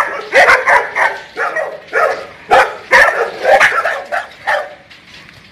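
Caged dogs barking in quick succession, about a dozen short, sharp barks that stop about a second before the end.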